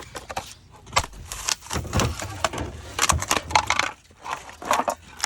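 Ceiling fan blades being broken: a run of irregular cracks, crunches and snaps.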